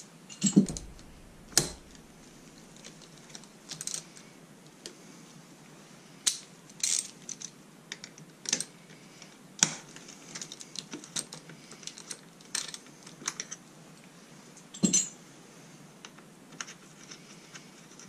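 Scattered metallic clicks and clinks of hand tools and small parts being handled at a dirt bike's rear brake caliper. They come at irregular intervals, with the loudest knocks about half a second in, at about a second and a half, and about fifteen seconds in.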